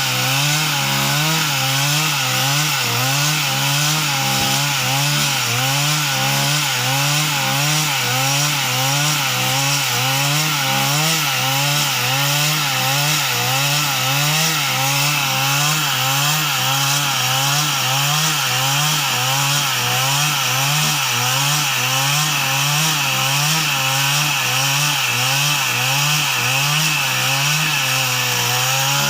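A machine's engine running steadily, its pitch wavering up and down in a regular cycle about one and a half times a second.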